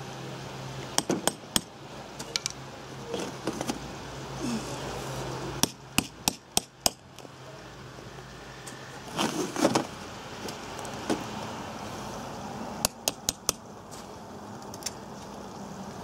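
Hammer tapping during repair work, in four short runs of a few quick blows each, about every three to four seconds.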